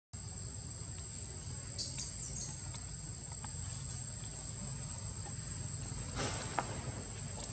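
Insects trilling in the trees, a steady high-pitched whine, over a low rumble, with a brief scratchy noise about six seconds in.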